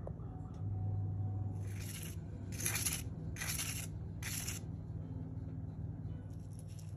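A knife cutting through crisp, pan-fried kilka fish coated in corn flour, making four short crunching crackles in quick succession, with a low steady hum underneath.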